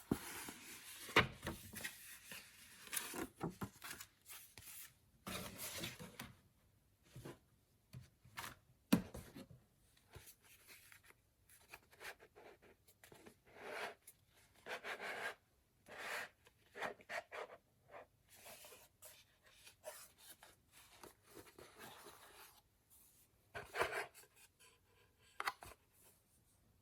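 Packaging being handled during an unboxing: irregular rustling, rubbing and tearing of paper, with a few sharp taps or clicks and short pauses between bouts.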